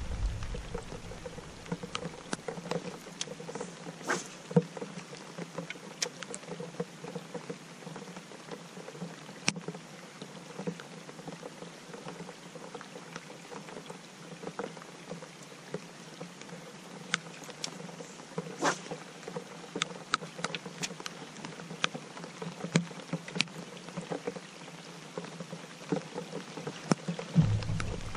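Rain pattering on the lake surface and the boat: a steady hiss with scattered sharp drips and taps. A low rumble comes in near the end.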